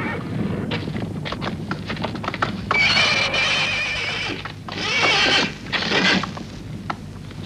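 A horse galloping, a quick run of hoofbeats, then whinnying loudly: one long, wavering neigh followed by two shorter ones.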